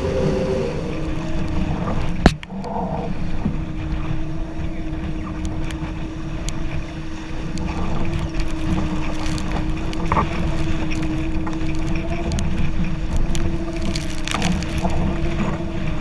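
Wind buffeting the microphone and water rushing past a C&C 30 racing sailboat under way in heavy wind, with a steady hum through most of it and a single sharp knock about two seconds in.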